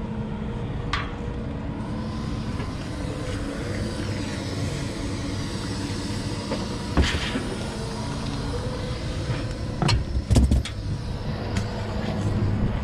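A heavy tow truck's engine idling steadily, with a few sharp knocks and clanks about 7 and 10 seconds in as steel hitch parts are handled and loaded into a car's cargo area.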